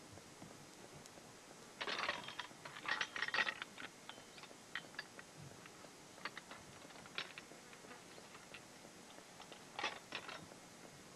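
Scattered small clicks and clinks of draft-horse harness chains and hitching hardware being handled, with a busier run about two to three and a half seconds in and another near the end.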